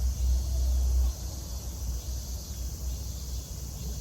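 Steady high-pitched chorus of crickets or similar insects, with wind rumbling on the microphone, strongest in the first second.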